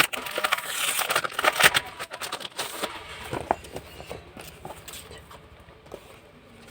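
Packaging and paper being handled: rustling with quick light taps and clicks, busiest in the first three seconds, then quieter with a few scattered taps.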